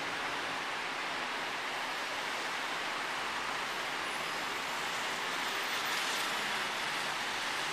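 Steady road-traffic noise from cars passing through a junction below: an even hiss of tyres and engines with no horns.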